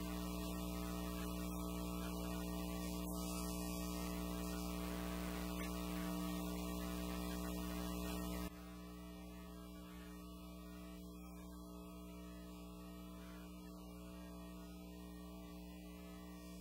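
A steady electrical mains hum with a stack of overtones, unchanging in pitch, dropping in level about eight and a half seconds in.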